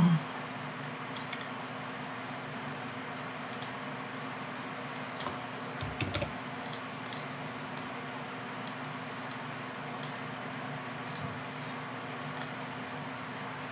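Scattered key clicks of someone typing on a computer keyboard over a steady low hum, with a short low thud at the very start and another about six seconds in.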